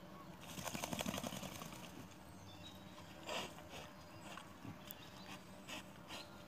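Wild boar rubbing its flank against a tree trunk: a quick rasping scrape lasting about a second near the start. Then scattered small clicks and one short noisy burst as it roots and feeds on scraps on the dirt.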